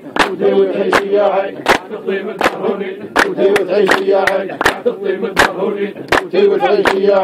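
Steady hand clapping, about two and a half sharp claps a second, keeping time under men's voices singing a shtawi folk chant.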